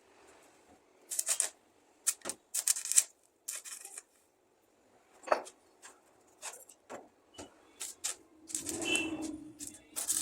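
Irregular clicks, taps and short scrapes of objects being handled, with a longer, louder scrape about nine seconds in.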